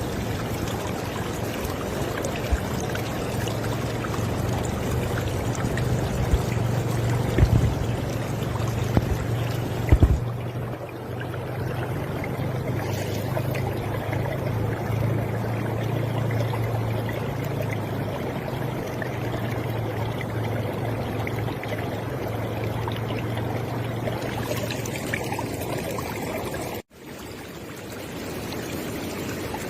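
River water flowing in a steady rush, with a few louder splashes about a third of the way in. Near the end it cuts out for an instant and comes back a little quieter.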